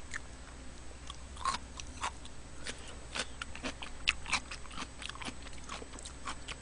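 A person chewing soft rice cakes and dumplings from rice cake soup (tteokguk) close to the microphone, with irregular wet smacking clicks from the mouth.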